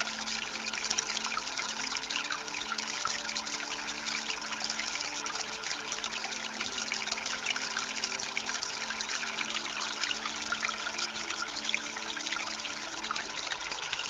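Water from a concrete-and-stone tabletop fountain trickling and splashing steadily over stones into its shallow pool, a continuous bubbling patter.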